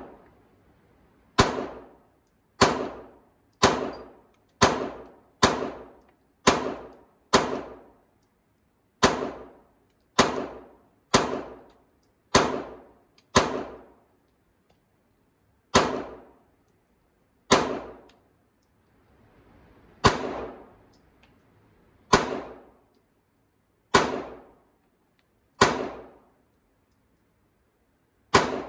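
Ruger Security-9 Compact 9 mm pistol firing about twenty single shots, each sharp crack followed by a short echo off the walls of an indoor range. The shots come fast at first, about one a second, then with longer gaps of up to two seconds.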